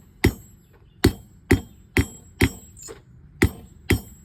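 Hand hammer striking hot quarter-inch square steel bar on an anvil, seven ringing blows at about two a second with a brief pause about three seconds in, tapering the end of the bar at a 45-degree angle.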